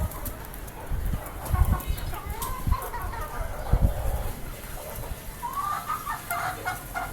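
Desi chickens clucking, in two spells of short calls, with a few low thumps between them.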